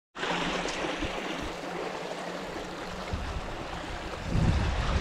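Shallow creek water rushing over rocks below a concrete culvert, a steady hiss. From about three seconds in, a low wind rumble on the microphone grows and becomes the louder sound near the end.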